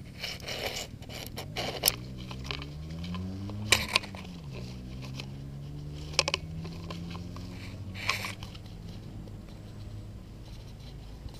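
Water splashing and rustling as hands grope underwater among roots and grass in a shallow river bank, with sharp slaps and scrapes every few seconds. Under it runs a low droning hum that rises in pitch and then falls back and holds steady.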